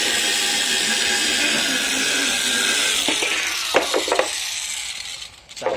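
Electric angle grinder running on a small metal bracket, then switched off about three seconds in and winding down, with a few sharp clicks as it slows.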